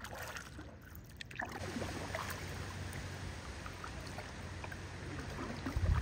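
Kayak paddling: paddle blades dipping and splashing, with water running along the hull, starting about a second and a half in after a quieter stretch and growing louder near the end.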